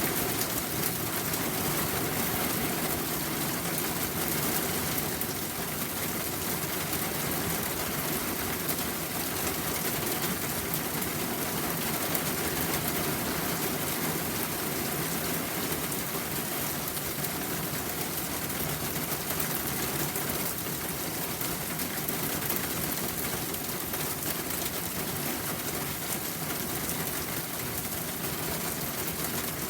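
Steady rain falling: an even hiss with many small drop ticks, holding the same level throughout.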